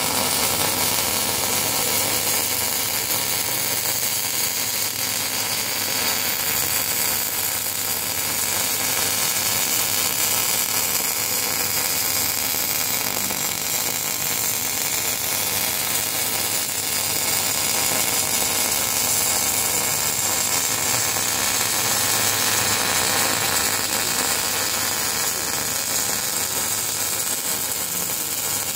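Electric arc welding: the arc runs as a continuous, even hiss while a seam is welded.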